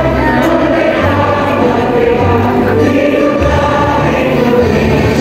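A large group of women singing a song together in unison, with a musical accompaniment whose low notes change about once a second.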